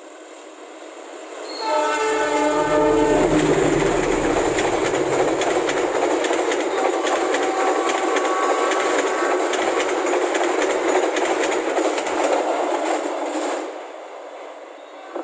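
Train passing at speed: its multi-tone horn sounds until about three seconds in, while a loud rush of wheel and rail noise with rapid clickety-clack begins. The rushing and clicking go on for about ten seconds, then die away about two seconds before the end as the train clears.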